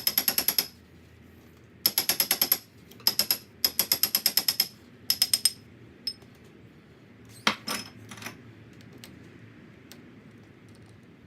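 Ratchet clicking in five quick bursts, each a rapid run of ringing metallic clicks like a ratchet wrench's backstroke, followed by two or three duller knocks about seven and a half seconds in.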